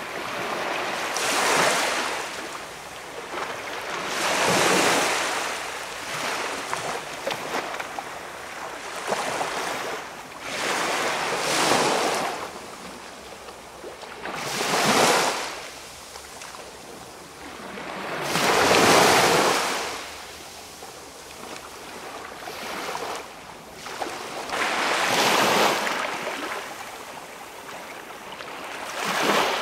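Small waves washing onto a calm beach, each one swelling and fading in a soft rush every few seconds.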